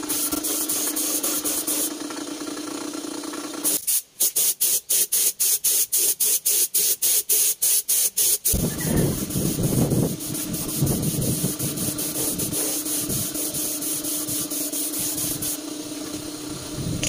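Compressed-air paint spray gun hissing as it sprays paint, over a steady hum. About four seconds in, the spray breaks into rapid short pulses for several seconds; then it runs steadily again with a low rumble underneath.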